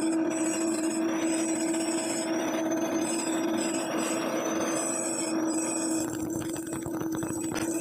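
Electric drill boring a 1-inch hole through thick mild steel plate: a steady motor hum under the grinding noise of the bit cutting. About six seconds in the cutting noise thins and turns rougher and more rattling.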